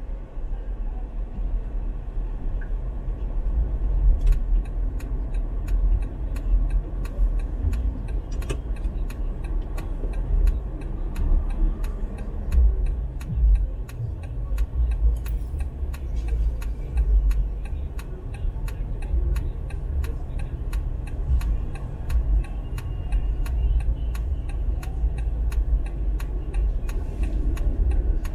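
Steady low road and engine rumble inside a moving car. From about four seconds in, the turn-signal indicator ticks at an even pace, roughly two clicks a second.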